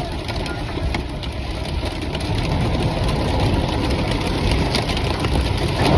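Heavy rain and hail beating on a moving van, with a few sharp ticks of hailstones among the steady downpour, over the low rumble of the van driving on a wet road.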